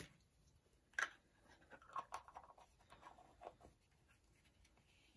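Faint handling of hard plastic toy pieces: a sharp click at the start and another about a second in, then a run of small scratchy clicks and rubbing.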